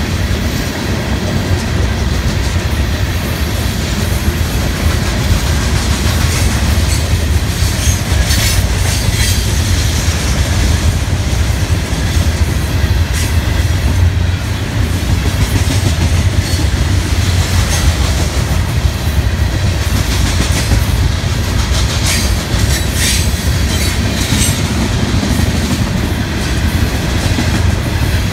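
Freight train cars rolling past close by: a steady low rumble with wheels clattering over the rail joints, and a few brief high-pitched screeches from the wheels.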